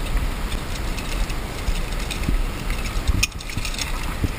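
Climbing rope and metal gear being handled, with a few short clicks of carabiners over a low, steady rumble.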